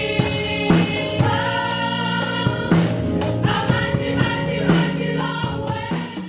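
Gospel music: a choir singing over a band, with drum hits on a steady beat. The music drops away near the end.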